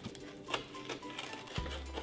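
Background music, with short crisp clicks and crackles from a serrated knife cutting through a flaky, buttery pastry crust.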